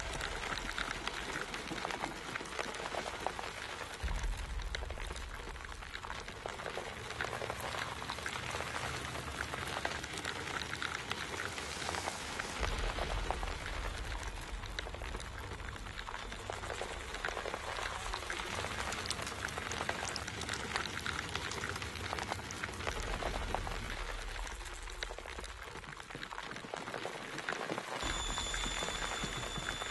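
Dense, continuous wet crackling and clicking of a writhing mass of maggots, over a low rumble that cuts in and out a few times.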